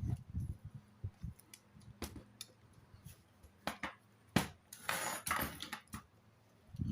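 Metal parts of a chainsaw adaptor being handled: scattered clinks and knocks, with a short scraping rustle about five seconds in.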